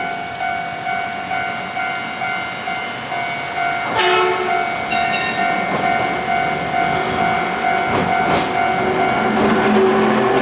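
Japanese level-crossing warning bell ringing its kan-kan in a steady rhythm of about two strikes a second, as a Hankai tram passes over the crossing. A brief sharp signal sounds about four seconds in, and the noise grows louder from there.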